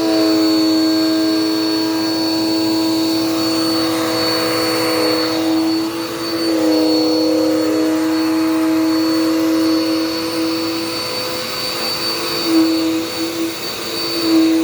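Dirt Devil Power Max vacuum cleaner running steadily, a motor hum with a thin high whine above it. The pitch shifts slightly about six seconds in and wavers near the end.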